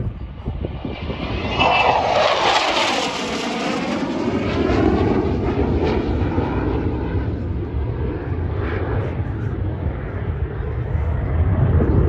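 F-16 fighter jet engine roaring during a low fly-by, building in the first couple of seconds, its pitch sweeping down about two to four seconds in as it passes, then a steady loud rumble as it moves away.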